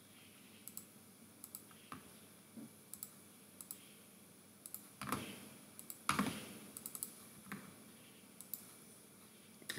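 Faint computer mouse clicks, single or in quick pairs, every second or so, with two louder knocks about five and six seconds in.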